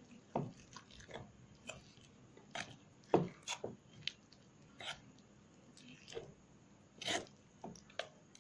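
Thin buckwheat-flour batter being stirred by hand in a steel pan: short, irregular wet clicks and squelches, the loudest about three seconds in and again about seven seconds in.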